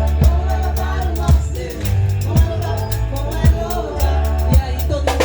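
Live band playing a song, with a singer's melody over sustained electric bass notes and a drum kit whose strikes fall about once a second.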